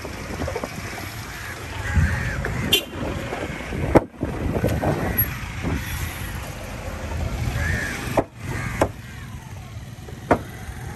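Outdoor hubbub of background voices over a low rumble, broken by a few sharp knocks.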